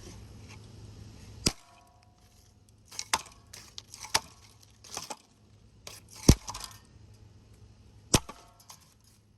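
Hampton Bay ceiling fan being smashed apart: a string of sharp, irregular knocks and cracks of hard blows on the fan, the loudest about two-thirds through. A low hum from the fan is heard until the first blow.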